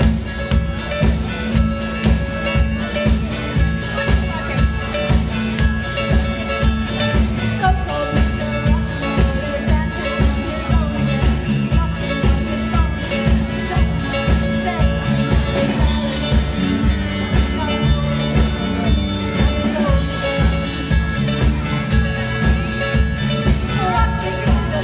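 Live rock band playing a song: a drum kit keeps a steady beat under electric and bass guitars, and two women sing lead.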